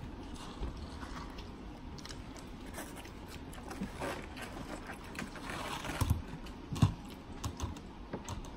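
Close-up eating sounds: chewing, with a fork clicking and scraping on a plate. Two louder short knocks come about six and seven seconds in.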